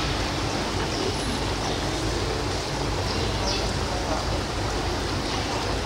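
Steady rushing background noise with indistinct voices murmuring in it.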